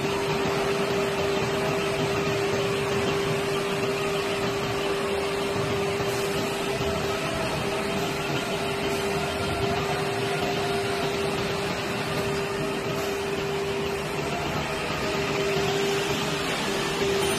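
Steady hum of woodworking factory machinery running: one constant tone over a broad whirring noise, with faint wavering tones above it.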